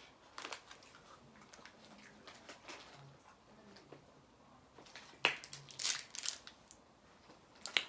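Intermittent crunching and crinkling as Takis rolled tortilla chips are handled and eaten: scattered sharp crackles, the loudest cluster about five to six and a half seconds in and another just before the end.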